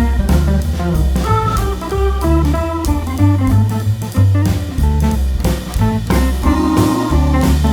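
Background music: an upbeat jazz-style band piece with drum kit, a walking bass line and guitar, at a steady beat.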